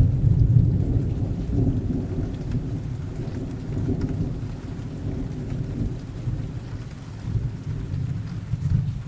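Recorded rain-and-thunderstorm sound effect: a low rolling thunder rumble, loudest about half a second in and slowly dying away, over steady rain.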